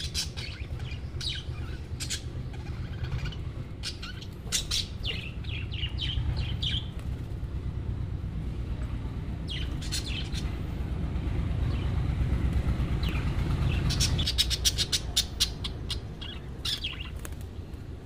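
Budgerigars chirping in short, scattered calls, busiest near the end, over a low rumble that drops away about three-quarters of the way through.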